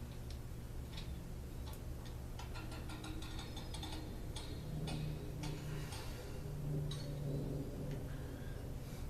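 Scattered light clicks and taps of small parts and tools being handled on a workbench, coming irregularly and more often in the middle, over a low steady hum.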